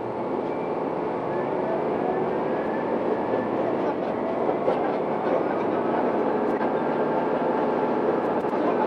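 Diesel railcar running along the track, pulling away from a station: the running noise grows louder in the first second and the engine note rises steadily as it gathers speed.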